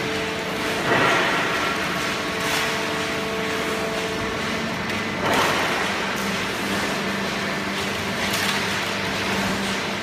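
Horizontal hydraulic baler line with its infeed conveyor running, a steady machine hum with a few held tones that shift about halfway through. Over it, four short rustling swishes as armfuls of scrap paper are thrown onto the conveyor.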